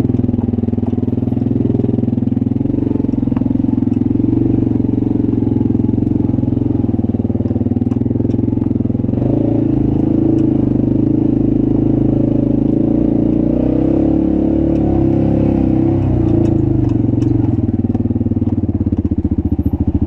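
Yamaha Wolverine side-by-side's engine running at low speed while crawling over rock, its pitch rising and falling slightly, with a few light clicks and rattles.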